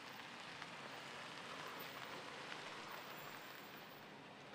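Faint, steady hiss of a pickup truck's tyres rolling over a dirt and gravel road.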